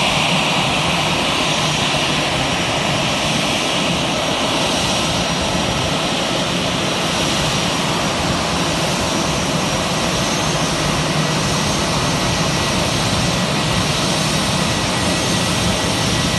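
Jet engines of an Air India twin-engine airliner running at taxi power as it rolls along the apron: a steady rushing noise with a thin high whine over it, the whine loudest in the first couple of seconds and then easing a little.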